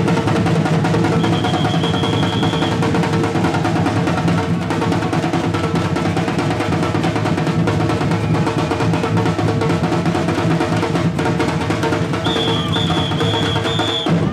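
Street percussion band drumming a steady, loud rhythm on bass and snare drums. A high whistle sounds once about a second in, then in four short blasts near the end.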